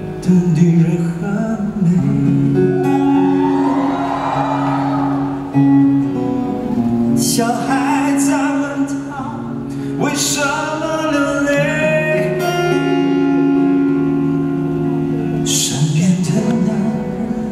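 A man singing a slow ballad live into a handheld microphone, with long held notes over acoustic guitar accompaniment, heard through the arena's sound system.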